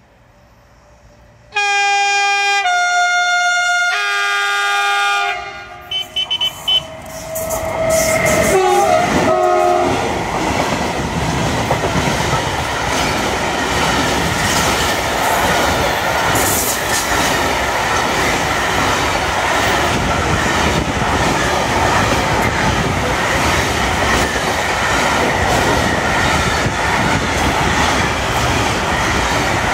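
Class 189 electric freight locomotive sounding its horn about a second and a half in, a loud multi-note blast that changes pitch twice and ends about five seconds in. Then the intermodal freight train passes close by: a loud, steady rumble and clatter of steel wheels on rails as the locomotive and a long string of pocket wagons carrying semi-trailers roll past.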